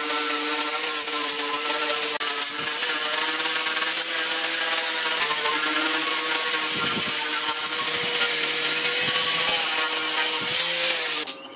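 Angle grinder running steadily with a constant whine, its disc grinding a thin steel plate to clean it as surface prep before welding. The grinder stops near the end.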